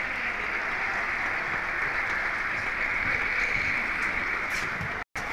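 Steady applause and noise from the arena crowd, with a very short dropout about five seconds in.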